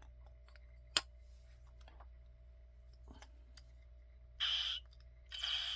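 Hypospray prop replica being handled while its magnet-held vials are loaded. There is a sharp click about a second in and a few faint clicks, then two short hissing bursts near the end.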